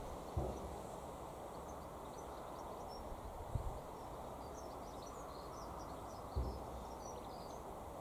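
Outdoor background with a steady low rumble. Three dull low thumps come soon after the start, midway and about three-quarters in, and faint high bird chirps come through in the middle.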